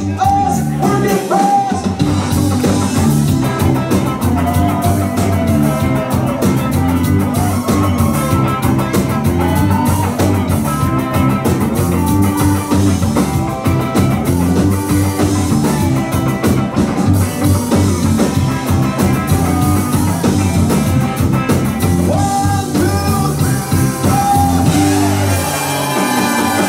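Live ska band playing a song: electric guitar, bass guitar, drums and keyboard, with trumpet and saxophone.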